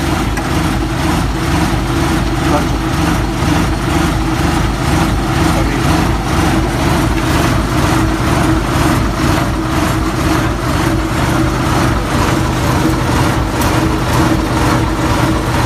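Diesel engine of an Ashok Leyland tourist bus idling steadily, a low, even running with a regular pulse.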